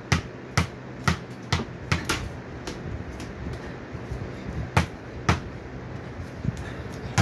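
A basketball being dribbled on the floor: bounces about twice a second for the first two and a half seconds, then a pause and two more bounces near five seconds in.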